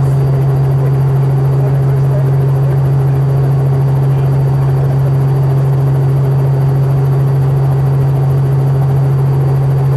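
Helicopter running steadily: a loud, unbroken low hum with a faint high whine over it.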